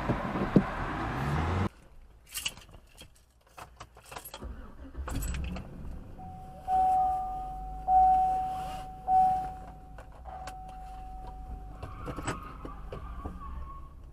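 Keys jingling and scattered clicks inside a parked vehicle, then a steady single tone lasting about six seconds that swells roughly once a second, followed by a brief higher hum.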